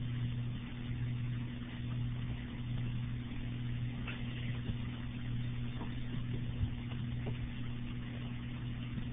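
Steady low electrical hum with an even background hiss, broken by a few faint clicks.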